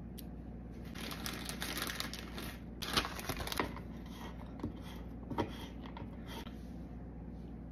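Knife cutting crisp cooked bacon on a plastic cutting board: a scattered run of small crunches and knocks of the blade striking the board, the sharpest about three seconds in and again about five seconds in.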